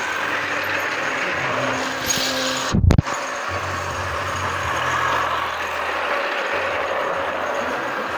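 Battery-powered toy Shinkansen bullet train running on plastic track, its small motor whirring and its wheels rattling steadily. A low thump comes about three seconds in.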